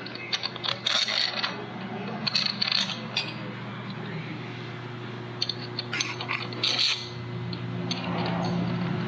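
Small metal engine parts clinking and scraping against each other as they are handled, in several short clusters of light metallic taps. A steady low hum runs underneath.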